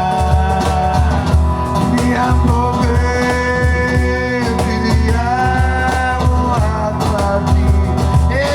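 Live band playing a Georgian song: singing and long held melodic notes over a pulsing bass and drum beat.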